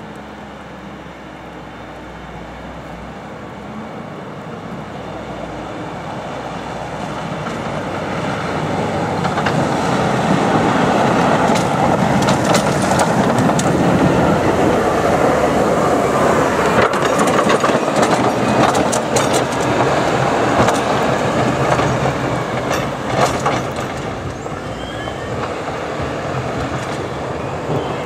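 Volvo L110H wheel loader's diesel engine running as it drives up, passes close by and moves on, loudest about halfway through. Under the engine, its steel plough and ice ripping blade scrape and rattle along the icy road, with many sharp scraping clicks while it is closest.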